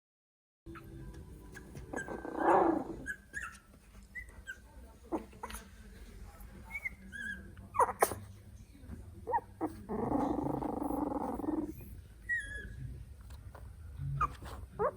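Three-week-old Italian Greyhound puppies making small squeaks and whimpers, with a few clicks. There is a louder growl about two seconds in and a longer growl at about ten seconds.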